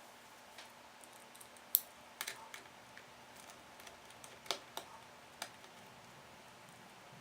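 Scattered light clicks and taps, about a dozen at irregular spacing, the loudest about two seconds in: small laptop parts and tools being handled during the teardown.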